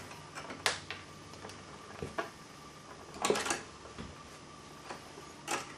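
A T-stripper and stripped copper wire handled by hand while hooks are bent in the wire ends: a few short, sharp clicks of the tool's metal jaws and the wire, with a quick cluster of them in the middle.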